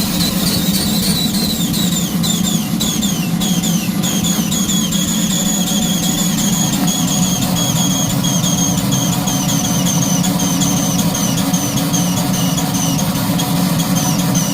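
A 3-inch scale Fowler traction engine model running on steam, with a steady low rush. Over it is a high whistling note that wobbles in pitch a few times a second, a whistle whose cause is unknown.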